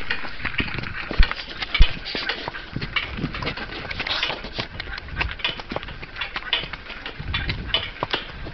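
A palomino cob's hooves clip-clopping while it pulls a driving carriage, mixed with quick irregular rattling and clicking. Two heavy thumps come a little after a second in and just before two seconds in.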